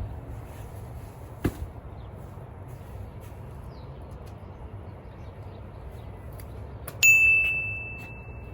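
A single metallic ding about seven seconds in: a sharp strike leaving one clear high ringing tone that fades over about a second and a half. A short click comes earlier, over a steady low outdoor rumble.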